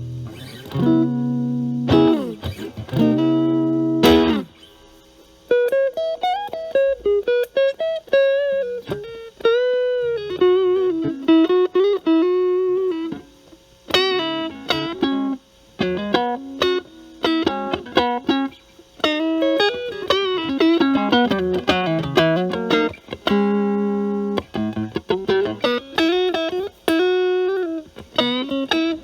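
Electric guitar (Stratocaster) through a Metal Pedals Rawhide overdrive into a Marshall Valvestate clean channel, the pedal's maximum-gain sound cleaned up to a lighter crunch. A few chords ring out over the first four seconds, then single-note lead lines with string bends, broken by a couple of chord stabs.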